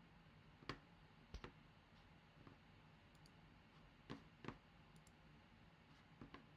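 Faint clicks of a computer mouse, about six in all, some in quick pairs, over a faint steady low hum.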